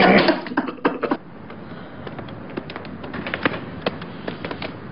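Steady outdoor background noise with scattered sharp pops and crackles, several a second, irregularly spaced.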